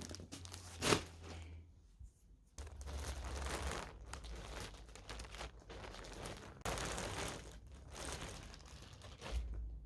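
Paper or plastic being handled close by: crinkling and tearing rustles, with a sharp click about a second in.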